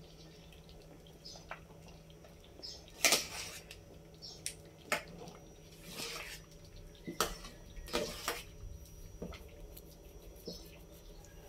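A metal ladle stirring thick chocolate rice porridge in an aluminium pot: wet stirring with a series of short scrapes and knocks against the pot's side and rim, the loudest about three seconds in and again between seven and eight and a half seconds.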